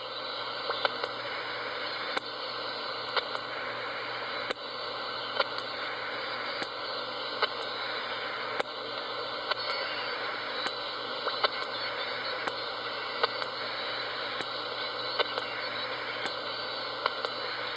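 Steady radio static hiss with sharp clicks about once or twice a second and a tone band that switches on and off about every second, as a CB radio is keyed repeatedly on FM. The clicks and switching go with the transmitter keying its amplifier relay, which now keys every time since its contacts were cleaned.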